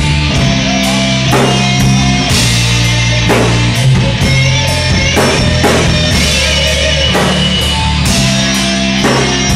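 Live rock band playing instrumentally: electric guitar and bass over a drum kit, with a strong drum hit about once a second.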